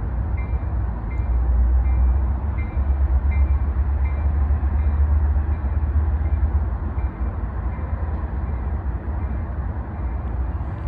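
Low rumble of an approaching Trinity Railway Express commuter train. A high ding repeats about twice a second over it and stops about nine seconds in.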